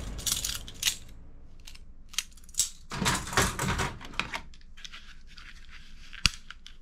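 Plastic toy guns clattering and knocking together as hands rummage through a cardboard box full of them: scattered clicks and short rattles, busiest about three seconds in, with one sharp click near the end.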